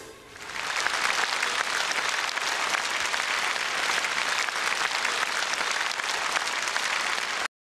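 Audience applauding, swelling up within the first second after the music stops, holding steady, then cut off abruptly near the end.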